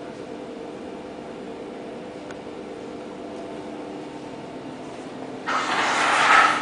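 A steady machine hum of several even tones. About a second before the end, a loud noisy rush cuts in and lasts about a second.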